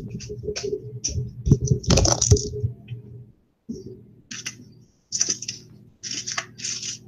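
Handling noises: irregular clicks and short scratchy rustles over a low buzzing hum that drops out briefly a few times.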